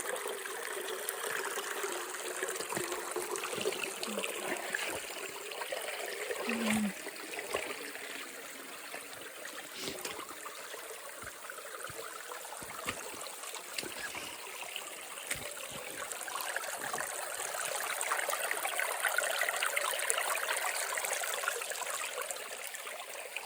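Shallow creek water running and trickling over rocks and ice, a steady rushing that swells a little in the second half, with scattered small clicks and knocks.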